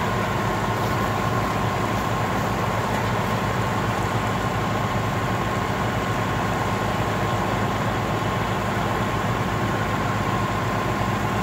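Parked fire engines' diesel engines running steadily, with a constant whine over the low engine sound.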